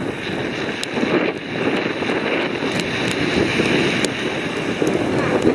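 Wind buffeting the microphone: a steady rushing noise that swells and dips.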